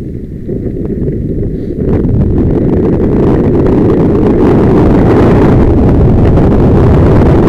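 Wind buffeting a helmet-mounted camera's microphone on a mountain-bike descent, mixed with the rattle of the bike over loose, stony dirt; it grows louder about two seconds in and stays strong.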